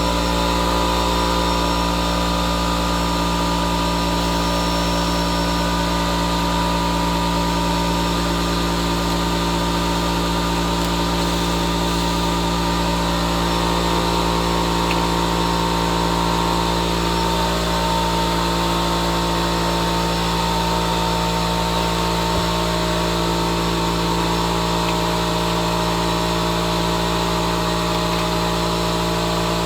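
Workshop air compressor running steadily, a constant machine hum with a noisy hiss over it, supplying air for blowing parts clean.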